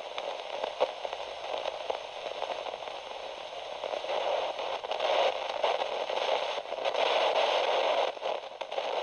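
Radio static: a steady hiss with scattered crackles and pops, swelling a little in the middle of the stretch.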